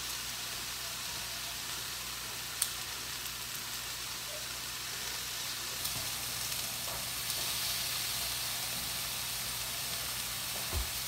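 Pork cutlets sizzling steadily in a frying pan, with one sharp click about two and a half seconds in.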